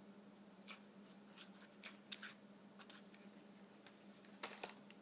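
Faint, scattered clicks and taps of a hot glue gun and a paper straw being handled on a cardboard cutout, the loudest pair about four and a half seconds in, over a low steady hum.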